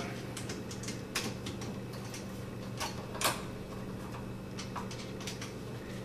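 Light, scattered clicks and small scrapes of a screwdriver working a GFCI outlet's terminal screw as the white wire is tightened in, with a faint steady hum underneath.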